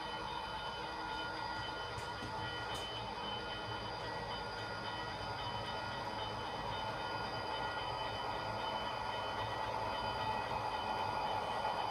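Model train running on the layout track: a steady electric motor whine over the rumble of wheels on rails, growing a little louder near the end as it comes closer.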